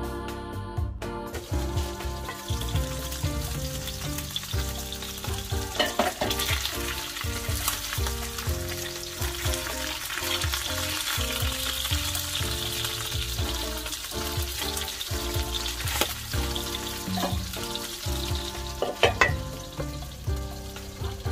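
Salmon pieces frying in hot oil in a nonstick pan, sizzling steadily, with a few sharp knocks from the spatula and pan lid as the pieces are turned. Background music plays underneath.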